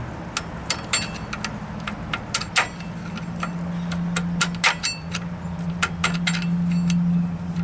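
Screwdriver tapping the star-wheel adjuster of a 2002 Chevrolet TrailBlazer's rear drum-in-hat parking brake through the rotor: a string of irregular sharp metallic clicks, roughly two a second, as the shoes are backed off notch by notch to relieve drag. A steady low hum runs underneath and grows louder about three seconds in.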